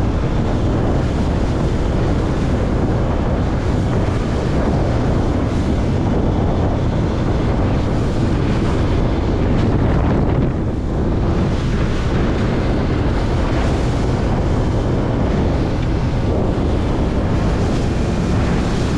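A motorboat running at speed over the water, with wind blasting steadily on the microphone and water rushing past the hull.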